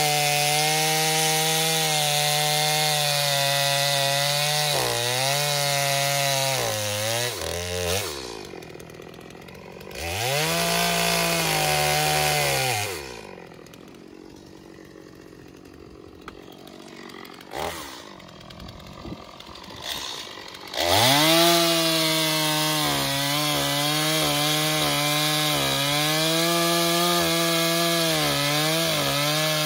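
Stihl MS 250 two-stroke chainsaw cutting through a firewood log at full throttle, its pitch dipping as the chain bites into the wood. About 8 seconds in it drops away, revs up again briefly, and goes much quieter for several seconds with a few knocks. About 21 seconds in it returns to full throttle for the rest of the cut.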